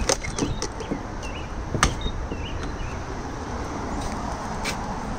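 Steady vehicle or traffic rumble with several sharp clicks and knocks scattered through it, the loudest about two seconds in and again near the end.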